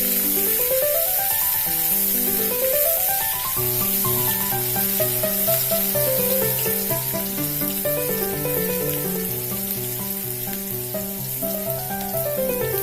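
Background music with rising and falling runs of notes over a repeating bass line that comes in about four seconds in, laid over a steady sizzle of food frying in oil in a pan.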